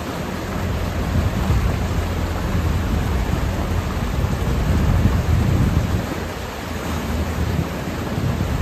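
Water rushing and splashing through a breached beaver dam, with the low steady hum of the Bobcat E35 mini excavator's diesel engine underneath as its bucket works in the stream.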